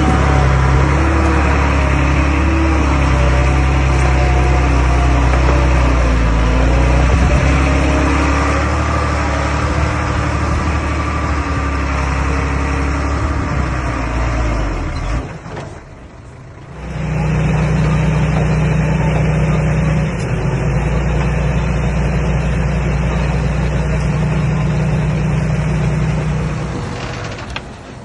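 Komatsu D21A bulldozer's diesel engine running under working load, its pitch shifting as it works. Just past halfway the sound drops away for about a second and a half, then the engine comes back running at a steadier pitch.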